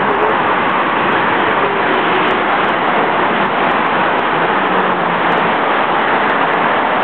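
Steady, loud road traffic noise, the even rush of passing cars with no break.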